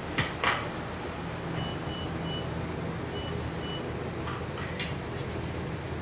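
Short high electronic beeps, three in quick succession and then two more, over a steady background hum, with a few sharp clicks near the start and near the end.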